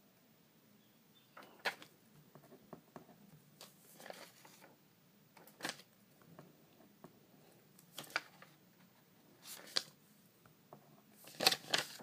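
A sheet of paper rustling as it is handled and written on with a pen, in scattered short rustles; the loudest come near the end.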